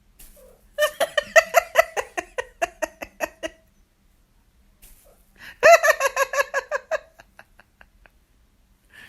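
A woman laughing hard in rapid, high-pitched ha-ha-ha giggles, in two bouts: a long one from about a second in lasting nearly three seconds, and a shorter one starting a little past halfway.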